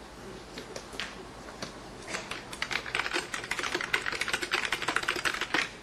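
Typing on keys: a few scattered keystrokes at first, then fast, continuous clicking from about two seconds in.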